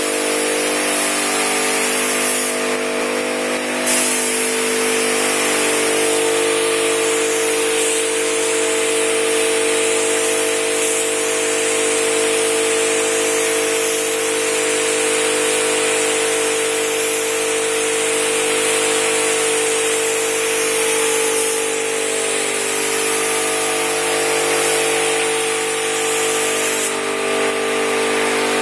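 Gravity-feed paint spray gun hissing as it sprays clearcoat onto a car body, over the steady hum of a running motor. The hiss turns sharper briefly about three seconds in and again near the end.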